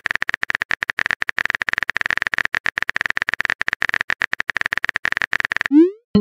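Phone keyboard typing sound effect: a fast, even run of short clicks as a text message is typed. Near the end comes a short rising whoosh as the message is sent.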